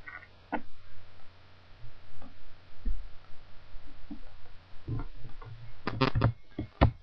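Computer mouse-button clicks: a single click just after the start, then a quick run of several clicks about six seconds in.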